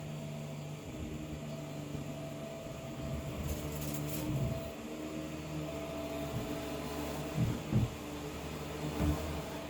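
Vacuum cleaner running in the next room, heard muffled through the wall as a steady low motor hum. Near the end come a few dull thumps.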